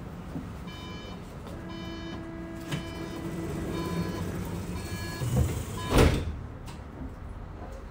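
Interior sound of a Bombardier Flexity tram at a stop: the door warning signal sounds as a few short runs of electronic beeps, then the doors shut with a loud thud about six seconds in.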